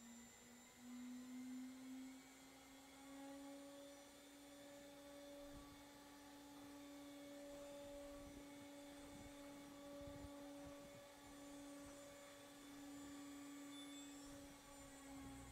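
Gyrozen 1730R refrigerated micro-centrifuge running with its rotor spinning: a faint, steady hum that rises slightly in pitch over the first few seconds and then holds.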